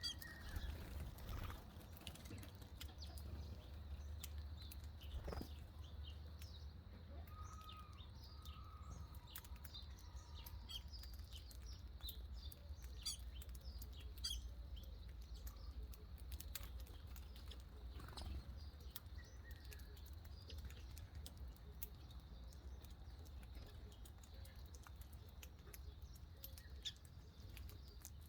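Small birds chirping: many short, high chirps and light clicks scattered throughout, with a brief whistled note about eight seconds in, over a low steady hum.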